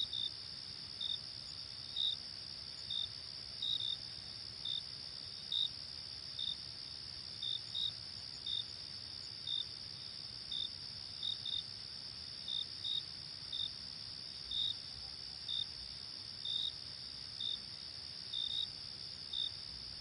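Night chorus of crickets: a steady, high, continuous trill, with one louder cricket chirping in short single or paired chirps about once a second.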